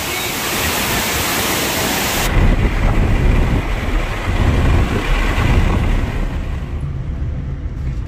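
Rushing water of a waterfall pouring over rock, a loud even roar, for about two seconds. Then it cuts off abruptly to the low rumble of road and engine noise inside a moving car's cabin.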